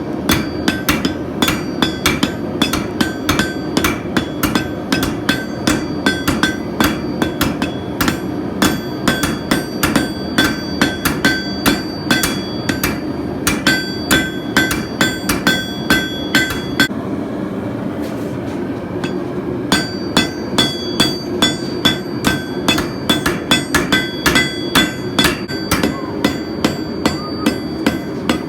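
Blacksmith's hammer striking a hot fencing nail on an anvil, drawing it out thin, at about three ringing blows a second. The hammering stops for a couple of seconds about two-thirds of the way through, then picks up again, over a steady low roar from the forge.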